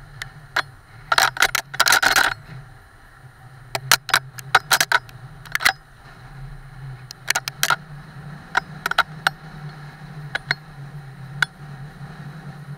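Irregular sharp clicks and short rattles from an action camera and its mount being knocked and shifted about, thickest about a second in and again around four to five seconds in, over a steady low hum.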